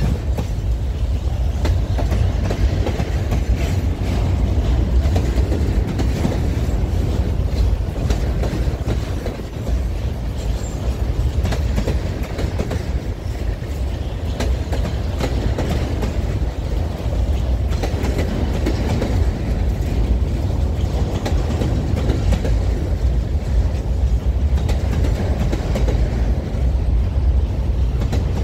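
Empty freight wagons of a long train rolling past: a steady rumble with a continuous run of wheel clicks over the rail joints.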